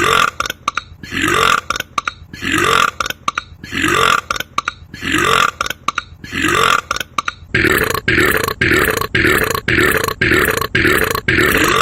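A man belching over and over in a steady rhythm, each belch rising in pitch, about one every second. The belches come quicker and close together from about two thirds of the way through.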